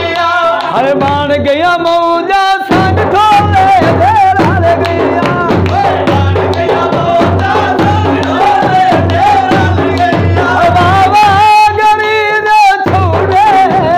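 A dhol, the large Punjabi double-headed barrel drum, beaten in a steady driving rhythm. A man sings a wavering, ornamented Punjabi sammi folk melody over it, with hand claps. The drum's low beats stop briefly twice.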